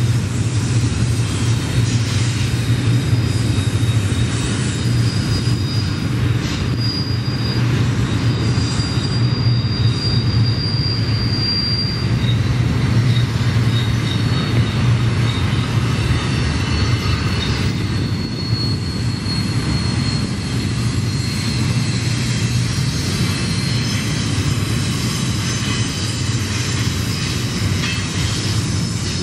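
Double-stack container train cars rolling past with a steady rumble of wheels on rail. Thin, high wheel squeal comes and goes over it, strongest from about five to twelve seconds in.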